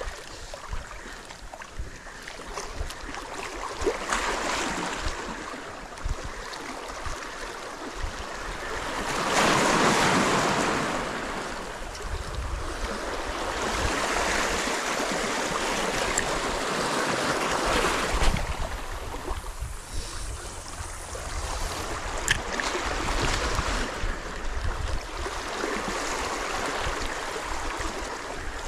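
Sea waves washing over shoreline rocks, swelling and ebbing in surges, the loudest about ten seconds in. Wind rumbles on the microphone through the second half.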